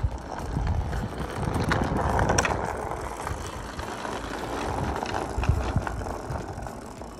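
A child's small bicycle with plastic stabiliser wheels rolling over tarmac: a continuous rolling rumble with scattered clicks and rattles, louder about two seconds in.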